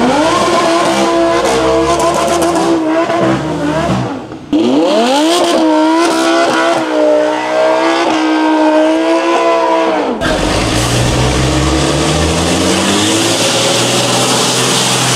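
Lamborghini drift car's engine revving up and held at high revs, twice, with its rear tyres spinning in a smoky burnout. About ten seconds in it gives way to a heavy Dakar rally truck's engine accelerating slowly, with a lower, rising note.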